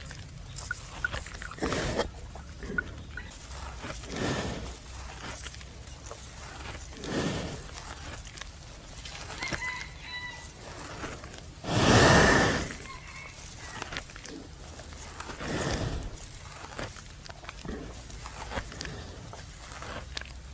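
A resting buffalo chewing the cud: short noisy sounds come every two to four seconds, and the loudest, about twelve seconds in, lasts about a second.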